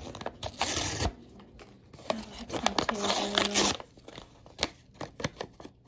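Plastic blind-bag pouch crinkling as it is handled, in two bursts about half a second and three seconds in, followed by light scattered clicks and taps.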